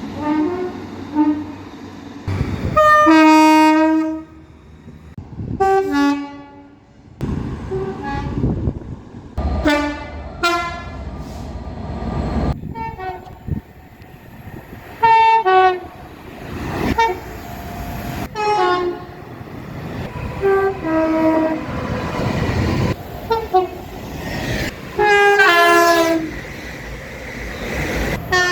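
Train horns from a series of different trains, about a dozen short blasts cut one after another, many of them two notes sounded in turn, with train running noise between some of them.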